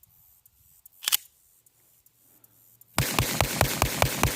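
A rapid string of gunshots starting about three seconds in, roughly seven a second, running together in echo. Before it there is a single short click about a second in.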